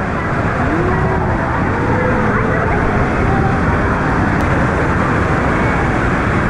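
Steady rush of a waterfall pouring from a cave ceiling into a pool, with faint voices of bathers in the first half.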